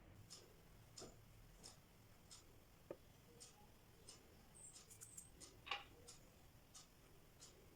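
Near silence with faint, evenly spaced ticks, about three every two seconds, and a slightly louder click a little past the middle.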